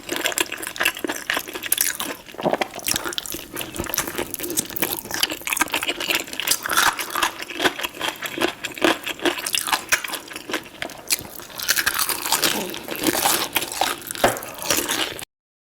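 Close-miked eating sounds: a person biting and chewing food, with dense, irregular crunching and wet, sticky smacking. It stops abruptly near the end.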